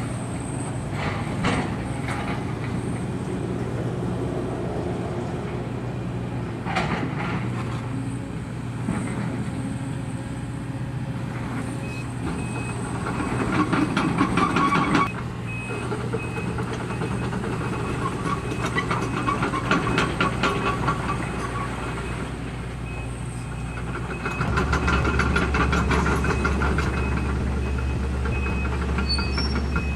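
Link-Belt 210 excavator's diesel engine running steadily, with scattered clanks and a stretch of scraping metal as scrap and cylinder blocks are pushed. About three-quarters of the way through, the engine note gets louder and deeper as it takes on load.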